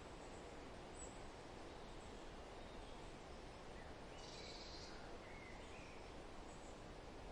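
Steady wind rustling through foliage, with faint scattered bird chirps; a brighter high twittering about four seconds in, followed by a few small chirps.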